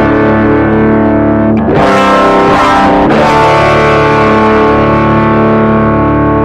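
Electric guitar through a JOYO Tai Chi low-gain overdrive pedal, playing mildly driven chords that ring out, with a new chord struck twice, about a second and a half and three seconds in.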